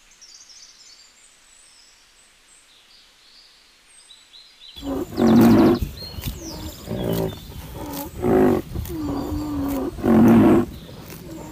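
White rhinoceros calling: a run of loud, short pitched calls, about five in six seconds, one of them sliding in pitch. They start about five seconds in, after a faint stretch with a few high chirps.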